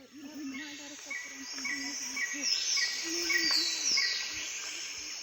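Insects trilling in a steady high hiss that swells about three seconds in, with a bird chirping over it about twice a second.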